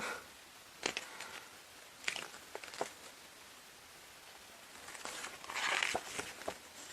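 Pages of a photo book being handled: a few soft clicks, then a brief paper rustle as a page is turned about five and a half seconds in.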